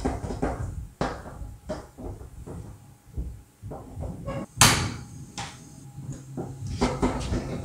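Silicone spatula stirring and scraping thick choux dough around a stainless-steel pan: irregular soft knocks, scrapes and slaps of the dough against the metal. One sharp, louder knock comes about halfway through.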